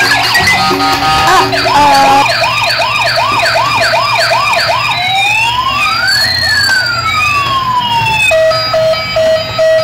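Electronic siren sound effects from a Robocar Poli toy police car's sound chip. It plays quick repeating wails, about three a second, then slow rising and falling tones that cross each other. From about eight seconds in it switches to a rapid steady beeping.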